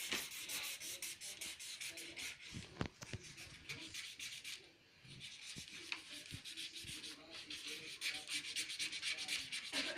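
Felt-tip marker scribbling hard on paper as a child colours in a drawing: rapid back-and-forth scratchy strokes, with a brief pause about halfway through.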